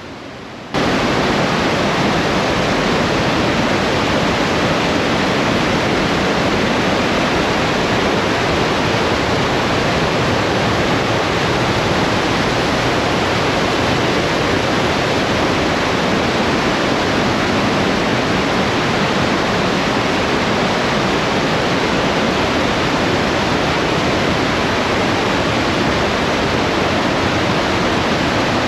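The Partnach River rushing and cascading through the narrow rock gorge: loud, steady rushing water. It cuts in suddenly about a second in.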